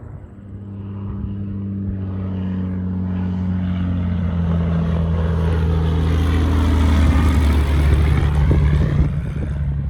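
Cessna 180's flat-six Continental O-470 engine and propeller at takeoff power, growing steadily louder as the plane approaches, then passing by about eight seconds in with a drop in pitch.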